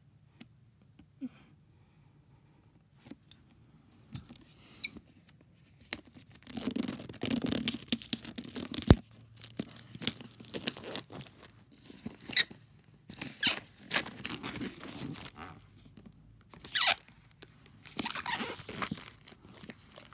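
Plastic shrink-wrap being torn and peeled off a product box, in irregular crinkling, tearing bursts starting about six seconds in after a few faint clicks.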